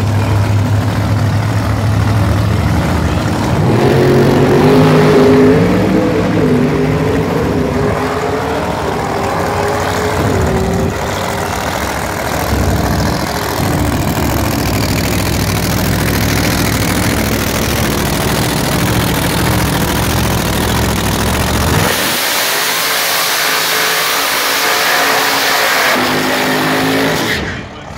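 Chevy Nova drag car's engine running and being revved as it pulls up to the line, then a burnout: about five seconds of high revs with a loud hiss near the end, dropping away suddenly just before the end.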